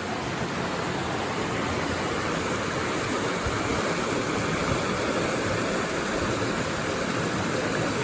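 Creek water flowing over rocks: a steady, even rushing.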